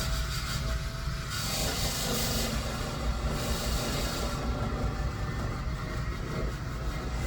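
Typhoon shear-sharpening machine running with a steady low hum from its spinning flat hone. A scissor blade is ground against the hone, giving a rasping hiss that swells and fades in strokes a second or so long.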